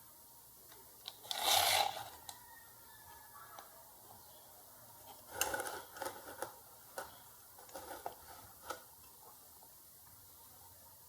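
Hands handling wires and test leads on a workbench: a short rustling scrape about one and a half seconds in, then a cluster of small clicks and rubs between about five and nine seconds, as the 15 volt supply lead is being connected to the board.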